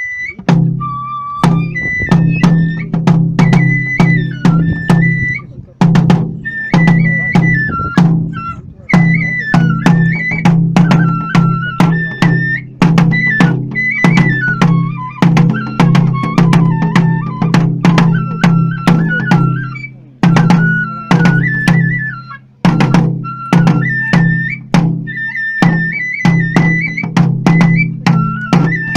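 Kagura festival music: a Japanese transverse bamboo flute plays a stepping melody over a brisk, steady beat of taiko drum strikes.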